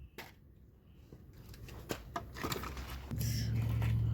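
Scattered light clicks and rustles of objects being handled and sorted, after a near-quiet start; about three seconds in a steady low hum sets in.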